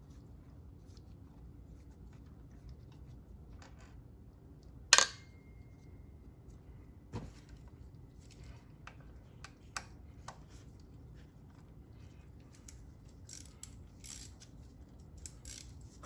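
A metal bolt dropped into a steel magnetic parts tray: one sharp clink about five seconds in, with a short ringing tone fading after it. Scattered light metallic clicks and taps of hand tools working the fitting follow in the second half.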